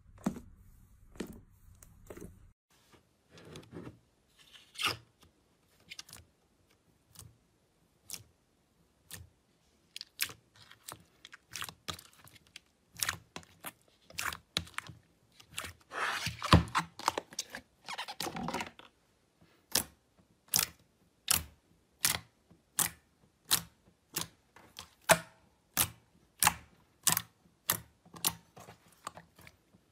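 Hands pressing and squishing slime, making sharp wet clicks and pops, with a longer crackling squelch about two-thirds of the way through. Near the end the clicks fall into a steady rhythm, a little more than one a second, as fingers press repeatedly into yellow slime.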